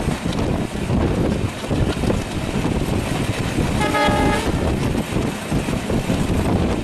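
Broad-gauge train running past, with a loud steady rumble and clatter of wheels on rail. About four seconds in, a single short horn toot lasting under a second.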